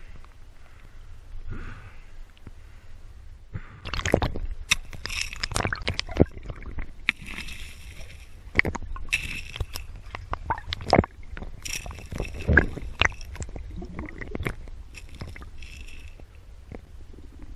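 Muffled underwater sloshing and gurgling picked up through a GoPro's waterproof housing. It is quieter for the first few seconds, then busy with frequent knocks and clicks and short hissing rushes of water or bubbles.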